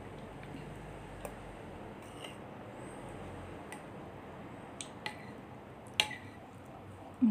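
A metal spoon stirring a batter in a glass mixing bowl, with scattered clinks and scrapes against the glass; the sharpest clink comes about six seconds in, and a brief low sound follows near the end.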